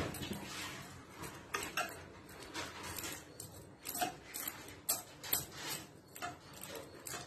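A metal ladle stirring vermicelli in a metal kadai, scraping and tapping against the pan in scattered light clinks, about ten of them at an uneven pace.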